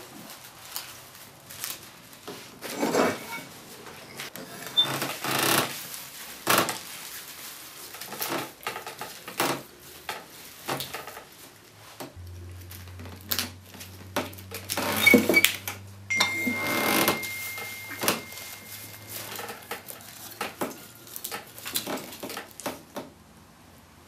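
Dry broom straw rustling, crackling and scraping in irregular bursts as it is gathered into bundles and stitched into a hand broom.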